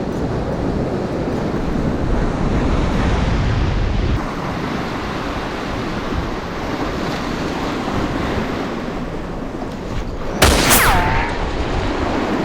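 Steady sea-surf and wind noise on the microphone. About ten seconds in there is a short, loud falling whistle-like sound.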